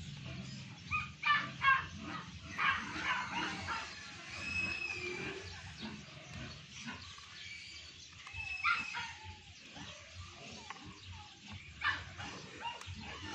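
A dog barking in short bursts, loudest in the first few seconds, with a couple more barks later on.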